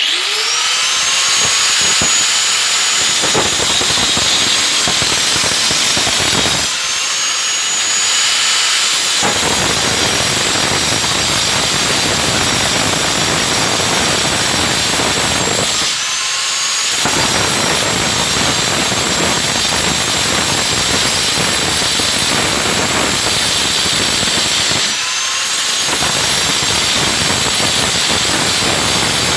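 Circular saw spinning up with a rising whine, then cutting with a loud, steady noise. Three times, about nine seconds apart, the cutting noise drops out for a second or so while the blade runs free and its whine climbs back up to speed.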